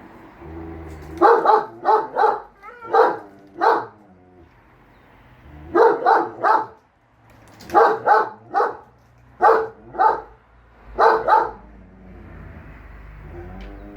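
A German shepherd barking loudly in quick groups of two or three, about fifteen barks in all. A Siberian husky answers with softer, wavering whines in the pauses.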